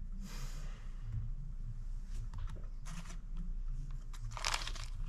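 Handling noises of a BMW E46 VANOS piston with new oiled seals being pushed into its bore: short scrapes and rubs, a tight fit. There is a rush of noise just after the start, a few quick scrapes two to three seconds in, and a louder scrape near the end, over a low steady hum.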